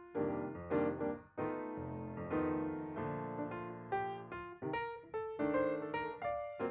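Background piano music: chords and melody notes struck in an easy rhythm.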